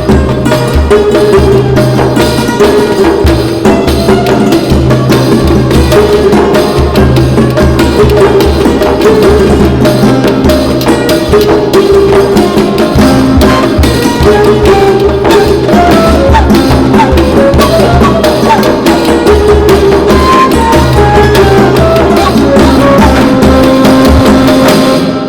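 Background music with a steady hand-drum beat and a melody over it, fading out at the very end.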